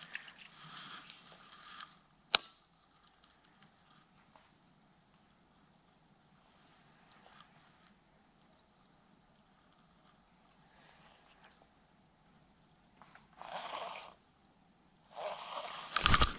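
Steady high-pitched drone of insects singing along the riverbank. A single sharp click comes about two seconds in, and a sudden louder clatter of handling noise comes right at the end.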